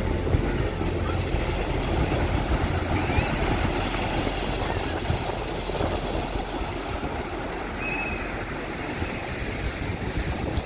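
Sea breeze buffeting the microphone, with a steady rushing noise behind it.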